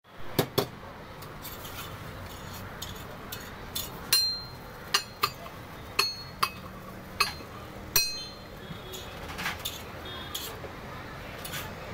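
Steel ladle and spatula clinking against steel pots and a dosa griddle: a string of irregular sharp metallic clinks, a few of them ringing briefly, over a steady low background hum.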